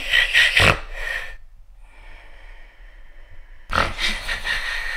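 A man snoring loudly: one long snore that dies away about a second and a half in, a quieter breath, then another loud snore starting near the end.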